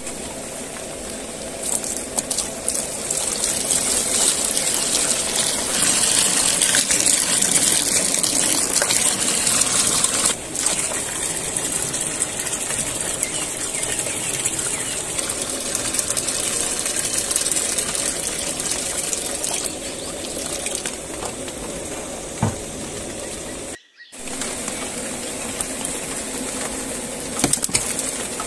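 Steady rain falling, a continuous hiss, with a brief drop-out near the end.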